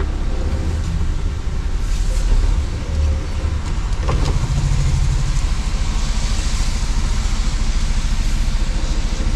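Heavy truck driving on the road, heard from inside the cab: the diesel engine gives a steady low rumble under the tyre and road noise.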